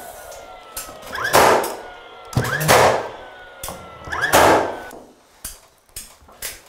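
Cordless stapler firing staples through thin hardboard into the ceiling: three sharp shots about a second and a half apart. Each shot has a short rising whine just before it and a thin whine after it that sinks slowly in pitch. A few light clicks follow near the end.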